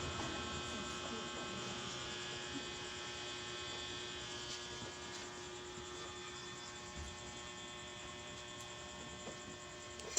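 Steady electrical hum made of several faint steady tones, slowly getting quieter, with a few faint clicks.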